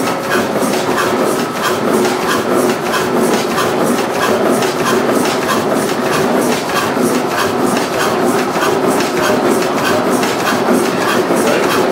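Old Fairbanks vertical stationary engine running with its flywheels turning, giving a steady, evenly spaced mechanical clatter.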